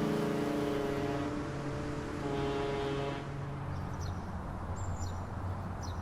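Background guitar music fading out over the first few seconds, leaving a low steady hum with a few faint high chirps.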